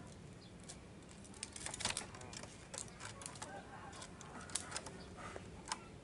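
A white ringneck dove moves about its wire cage, making scattered sharp clicks and scrapes in clusters, with faint cooing in places.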